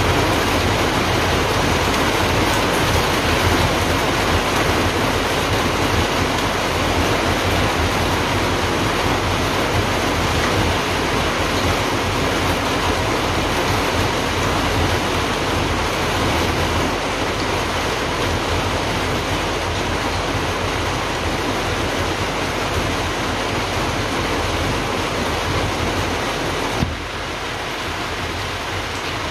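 A steady, loud rushing hiss that becomes a little quieter near the end.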